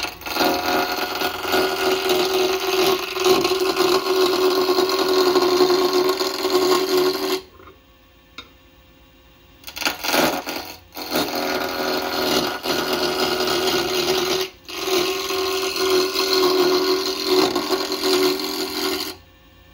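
Turning tool cutting a spinning maple blank on a lathe: a loud, rough cutting noise in long passes, stopping for about two seconds near the middle and briefly again a few seconds later, then ending shortly before the end.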